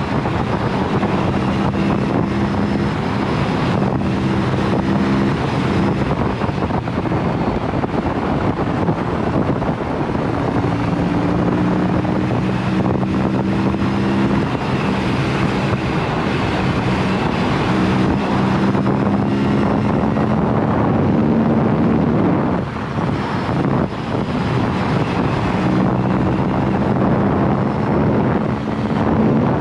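Aprilia sport bike's exhaust with the dB killer removed, the engine running steadily at speed, its note holding for stretches and stepping down a few times, under a heavy rush of wind over the microphone.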